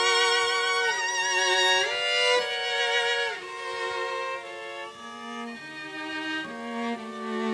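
Live chamber music on violin, viola and cello: a slow melody of long held notes with vibrato, changing about once a second. It is loud for the first three seconds, then softer, with lower held notes entering about five seconds in.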